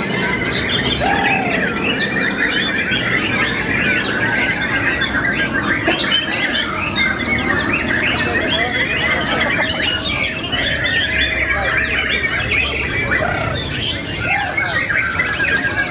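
Many caged white-rumped shamas (murai batu) singing at once: a dense, unbroken mix of overlapping whistles, chirps and rapid chattering phrases.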